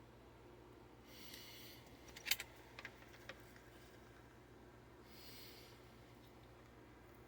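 Two soft breaths about four seconds apart, with a few sharp clicks in between; the loudest click is about two seconds in.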